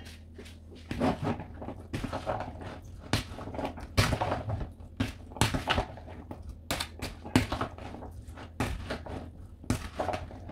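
A plastic spoon stirring and scraping chickpeas and chopped vegetables in a plastic mixing bowl: irregular knocks and scrapes, roughly one or two a second.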